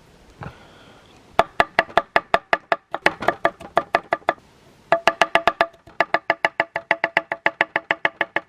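Knife chopping vegetables on a cutting board: runs of quick, even, ringing strokes at about five a second, with short pauses between runs.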